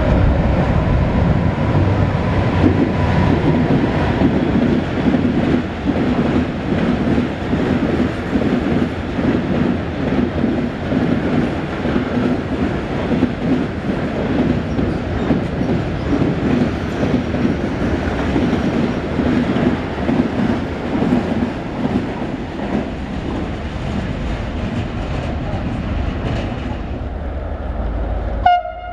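Freight train of covered boxcars running through a station at speed behind an electric locomotive, with a continuous rumble of wheels on rails and an even beat from the wheels passing over the rail joints. The sound breaks off suddenly near the end.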